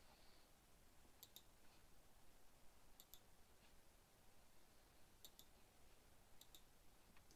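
Faint computer mouse clicks: four pairs of quick clicks spread through, each a button press and release, over quiet room hiss.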